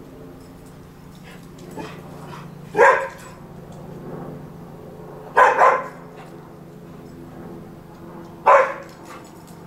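Vizsla barking up a tree at squirrels: short sharp barks about three seconds apart, the middle one a quick double bark.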